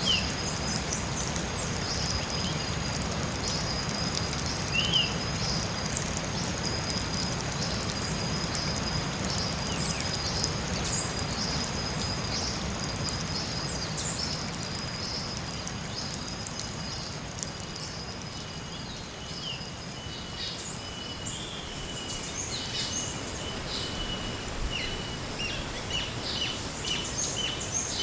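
Forest ambience: a steady hiss throughout, two high steady tones that fade out about halfway, then a lower steady tone, and scattered short bird chirps that grow more frequent near the end.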